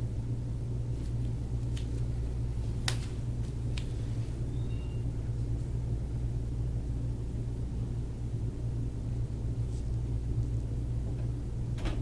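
Steady low hum, with a few faint, sharp clicks in the first four seconds, the sharpest about three seconds in.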